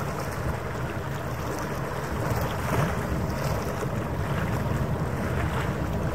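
Wind buffeting the microphone over harbour water, with a steady low rumble and the wash of the sea.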